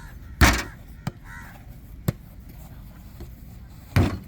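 Football struck and bouncing during a table-jokgu rally: two loud thuds about three and a half seconds apart, with lighter taps of the ball in between.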